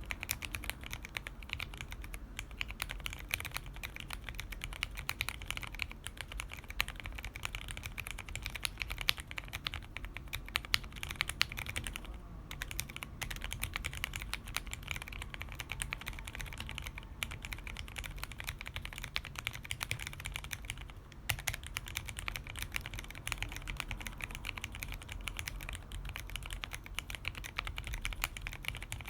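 Steady fast typing on an Absolem keyboard with lubed and filmed Cherry MX Black Hyperglide linear switches and PBT Cherry-profile keycaps, a dense run of clicks and key bottom-outs. Typing pauses briefly twice, at about twelve seconds and about twenty-one seconds in.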